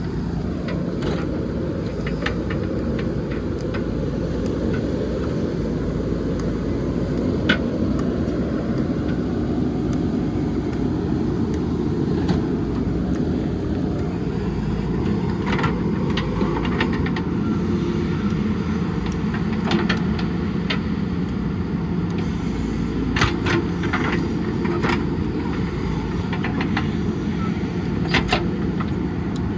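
JCB backhoe loader's diesel engine running steadily at working speed, with scattered sharp clanks and knocks from the machine at work.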